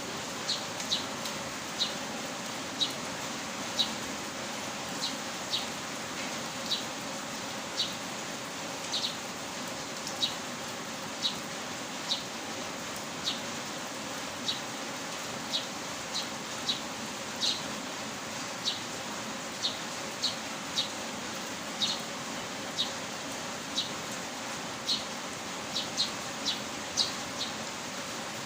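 Heavy rain falling as a steady hiss, with short, sharp high ticks coming irregularly about once or twice a second over it.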